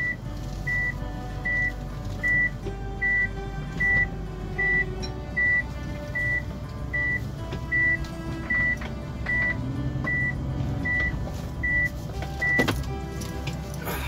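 A car's reverse-gear warning beep: a short high beep repeating steadily about every 0.8 s, stopping a little before the end.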